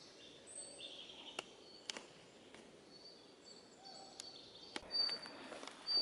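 Faint high bird chirps repeating in a forest, over a quiet hiss of ambient noise, with a few sharp clicks.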